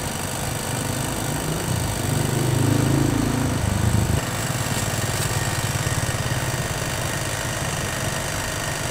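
An engine running steadily as a low drone, growing louder for about two seconds near the middle, then settling back.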